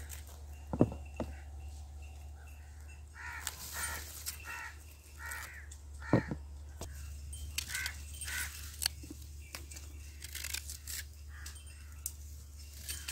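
A crow cawing several times in a row, with a few sharp knocks and clicks as raw green bananas are cut off the bunch with a knife and laid on a plastic cutting board.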